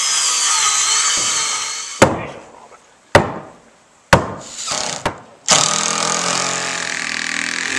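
A circular saw cutting through a lumber plank for about two seconds, then four heavy sledgehammer blows on wooden deck boards about a second apart. From about halfway through, a power drill runs steadily as it drives a screw into a new deck plank.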